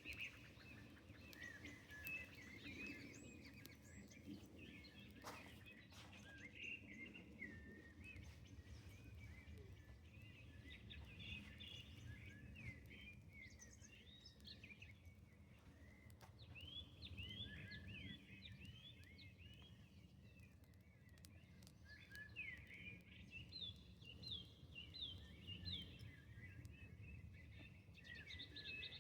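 Faint outdoor birdsong: many birds chirping, with quick rising and falling notes, over a low steady rumble and a few scattered clicks.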